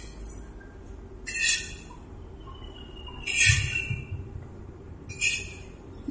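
Battered tofu deep-frying in hot oil in a large aluminium wok: a steady sizzle, with three louder bursts of sizzling and scraping as a long spatula stirs through the pan.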